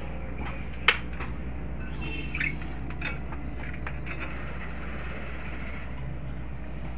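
Steady low background rumble with one sharp click about a second in and a few lighter clicks a little later.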